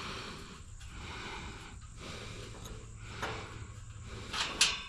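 Soft breathing that swells and fades about once a second while a wrench works the fan-blade nut on an air-conditioner condenser fan motor, with two or three sharp metal clinks of the wrench near the end.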